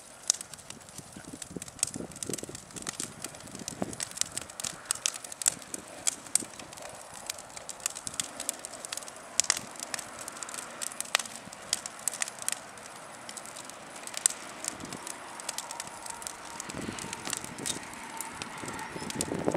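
Old wooden furniture burning in a big open fire, crackling with sharp pops at irregular intervals.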